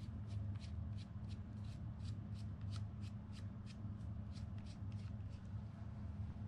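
Cloth rubbing down a fishing rod in quick back-and-forth strokes, about three a second, over a steady low hum.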